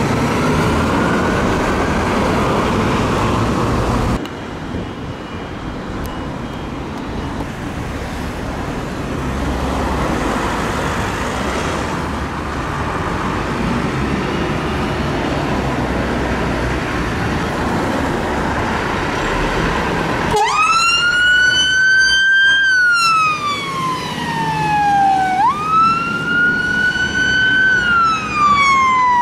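Fire engine siren on wail, faint at first under steady road and engine noise, then loud from about two-thirds of the way through: each cycle climbs quickly and falls slowly, repeating about every five seconds.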